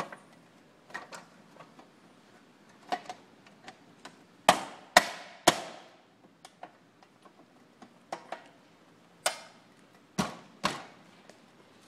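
Sharp knocks and clicks of a high-low bracket being fitted onto an office cubicle panel connector. There are three strong knocks about half a second apart midway, three more toward the end, and lighter clicks in between.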